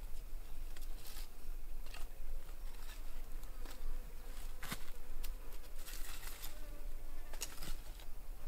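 Freshly lit wood fire of sticks over charcoal crackling, with irregular sharp pops as the kindling catches. A faint insect buzz runs underneath.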